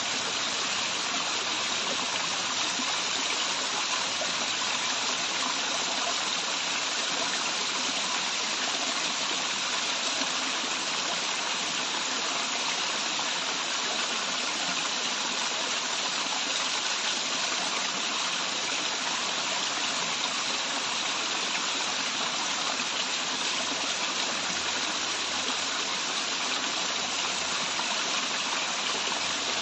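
Waterfall water running, a steady even rush that does not change.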